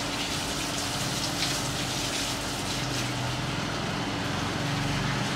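Water running from a garden hose and splashing steadily into plant pots, with a steady low hum underneath.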